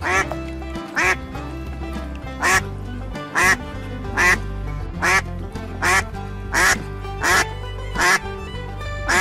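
A duck quacking over and over at an even pace, about one short quack a second, over steady background music.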